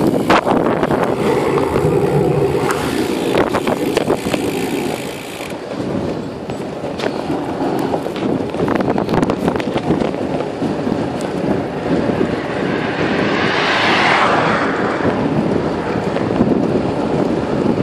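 Wind rushing over the microphone of a phone riding on a moving bicycle, with a steady rumble of the tyres on the road. The first few seconds hold many sharp knocks and rattles, and about fourteen seconds in a hissing noise swells and fades away.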